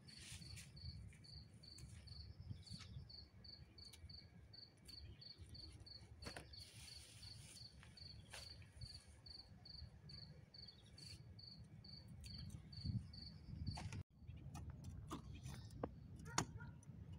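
A cricket chirping steadily and faintly, about three high chirps a second, with scattered soft rustles of plant stems being handled. It stops abruptly about fourteen seconds in, followed by a few sharp knocks of a hoe striking soil.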